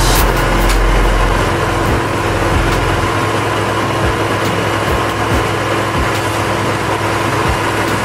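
Engine of a tree-cutting machine running steadily while its boom-mounted hydraulic saw head cuts through a treetop.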